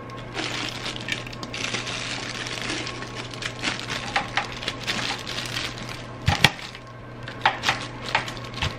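Plastic slow-cooker liner crinkling as a glass lid is set down on the crock pot, then a series of sharp clicks and clunks as the lid is seated and its locking clips are snapped onto the handles. The loudest knock comes about two thirds of the way through.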